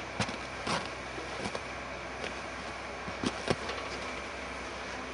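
A few short, soft taps and rustles over a steady hiss, from a kitten pawing and wriggling on paper close to the microphone. The two loudest come close together about three and a half seconds in.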